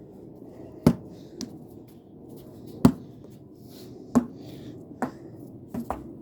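Basketball bouncing on a hard floor: about five solid bounces at uneven intervals, with a couple of lighter, quicker taps near the end.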